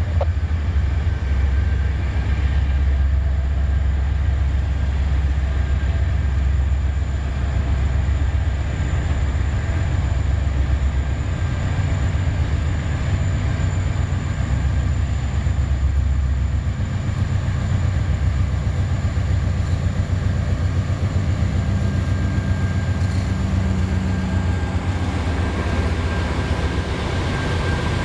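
Canadian National diesel-electric freight locomotives running close by, pulling a train of autorack cars; a loud, steady low engine rumble.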